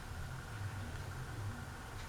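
Encon vintage ceiling fan running, its motor giving a low, steady hum under a soft even whoosh.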